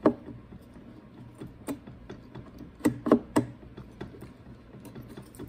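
Sharp metal clicks and knocks as the aluminium cylinder of a Husqvarna 150BT blower's two-stroke engine is worked sideways down over the piston and rings. There is a loud one at the start, then scattered ones with three in quick succession about three seconds in.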